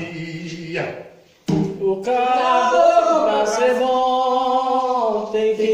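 Voices singing a Tambor de Mina doutrina (sacred song) for Jurema, with no instruments heard. The singing breaks off briefly about a second in, then resumes with long held notes.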